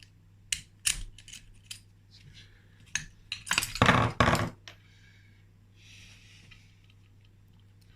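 Loose steel engine parts clinking and knocking as the clutch nut, clutch centre and washers come off the shaft and are handled: a few sharp clicks at first, then a louder clatter of metal about three and a half seconds in.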